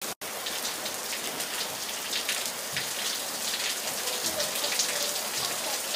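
Steady rain falling, a dense hiss and patter of drops.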